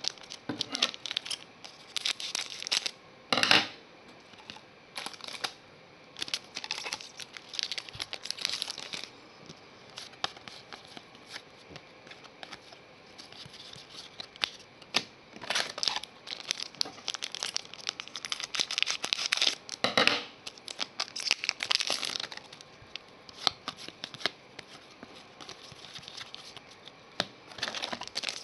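Trading cards being handled and sleeved: irregular sliding, scraping and crinkling of card stock and a plastic card sleeve, coming in short bursts with quieter gaps.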